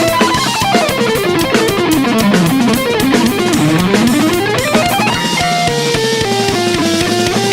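Rock music with guitar and drums; about a second in, a melodic line steps down in pitch for a couple of seconds and then climbs back up.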